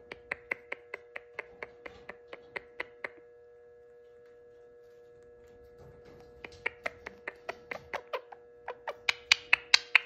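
Indian ringneck parakeet making rapid sharp clicking sounds, about four or five a second, in two runs: one in the first three seconds and a louder one from about six seconds in that builds toward the end.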